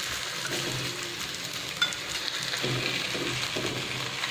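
Oil sizzling steadily under a gram-flour and leftover-rice pancake frying on a hot tawa over a low flame, with one sharp click about two seconds in.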